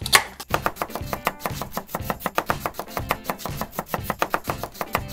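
Plastic toy knife cutting a toy peach on a plastic cutting board, with short sharp knocks of the blade against the fruit and board, over background music.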